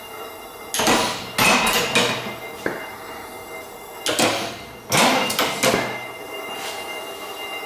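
Three-quarter-size reproduction 1867 Otto & Langen atmospheric free-piston engines running on hydrogen. The sound is two bursts of loud clattering about three seconds apart, each a quick run of sharp bangs and rattles, from a combustion event driving the free piston and its toothed rack up and back down through the ratchet clutch.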